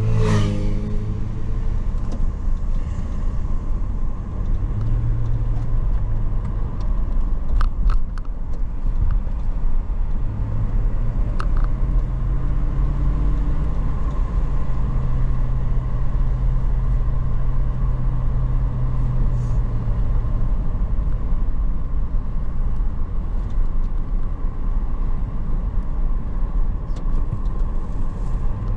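A car driving on a winding road: a steady low rumble of engine and road noise, with the engine hum rising and falling a little in pitch. Right at the start a pitched sound drops quickly in pitch.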